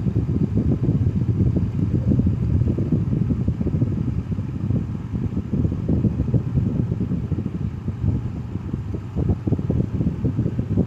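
Echo CS-300 chainsaw's small two-stroke engine idling steadily, off the throttle; it runs, showing its ignition coil and flywheel work.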